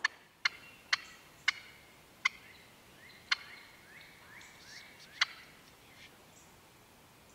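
Wild turkey calling: seven short, sharp clucks, the first four about half a second apart and the rest more widely spaced, with soft rising notes between them about three to four and a half seconds in.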